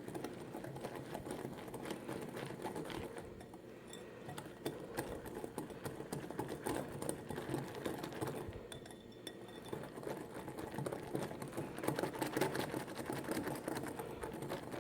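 A whisk beating muffin batter in a bowl: rapid, continuous clicking and scraping against the bowl, easing off briefly about nine seconds in.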